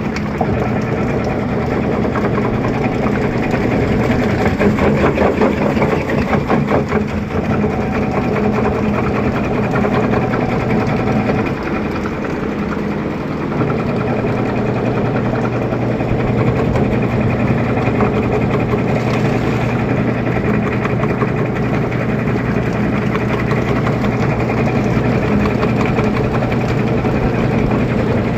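LG Fuzzy Logic TurboDrum 14 kg washing machine in its spin cycle: a steady motor hum with a fast drum rattle, loudest and most rattly in the first several seconds, easing briefly after about ten seconds, then settling into an even spin.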